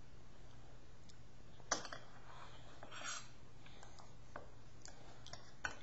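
A metal spoon clicking against a stainless steel cup as a child eats from it: a sharp click about two seconds in, a few faint ticks, and another click near the end, with a short breathy mouth sound in between.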